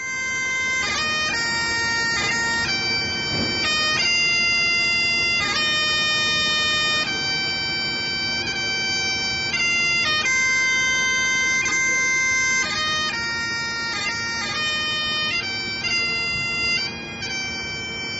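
Bagpipes playing a slow melody over their steady drones.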